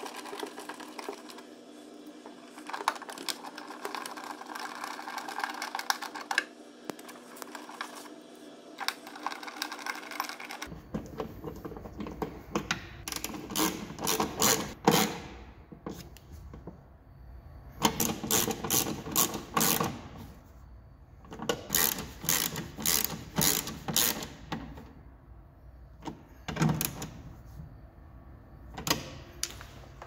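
Reassembly of a charging socket: a steady mechanical hum for the first ten seconds or so, which cuts off abruptly, then repeated runs of rapid clicking and rattling as hand tools and plastic parts are worked.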